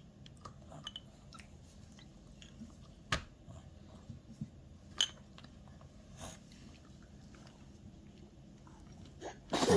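An 11-month-old baby eating soft baby food: faint chewing and mouth sounds, with a few small clicks, the sharpest about three and five seconds in.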